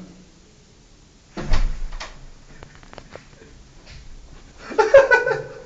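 A toilet stall door, its lever handle tied shut from outside with a cloth, is pulled and rattled from inside. There is a heavy thud about a second and a half in, a few small clicks from the handle and latch, and another loud rattle near the end.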